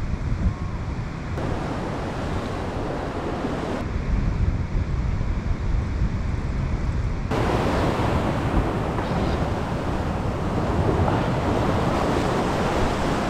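Ocean swell surging and breaking into whitewater against a rock ledge, with wind buffeting the microphone. The sound changes abruptly at cuts about 1.5, 4 and 7 seconds in, and from about 7 seconds the surf hiss is fuller and brighter.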